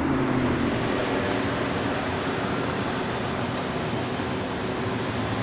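A car's engine note trailing off and fading in the first second, then steady street traffic noise with a low hum.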